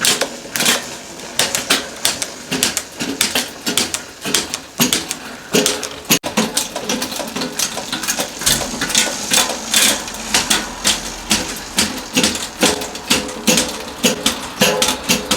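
Mountain bike gears being set up after a new gear cable is fitted: a long run of sharp, irregular mechanical clicks and ticks, some with a brief metallic ring.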